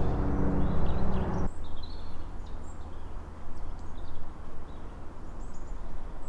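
Small birds chirping in short, scattered calls over a loud low rumble. The rumble cuts off abruptly about a second and a half in, leaving a fainter low hum under the chirps.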